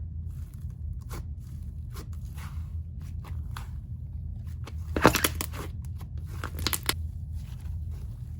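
Slime being squished and stretched by hand, giving sticky clicks, crackles and pops, with a denser, louder run of pops about five seconds in.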